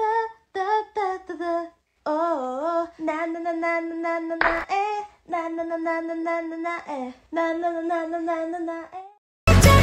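A lone female voice singing unaccompanied in short phrases, with long held notes that waver in pitch and brief pauses between them. Loud music cuts in suddenly just before the end.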